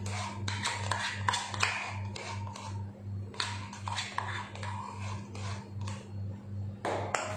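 Spatula scraping and tapping against a plastic cup as its contents are emptied into a steel bowl of melted chocolate: a string of light clicks and taps. Under it, a low hum pulses about three times a second.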